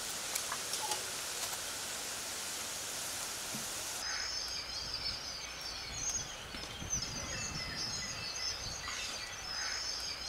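Outdoor ambience: an even hiss for the first few seconds, then birds chirping continuously from about four seconds in.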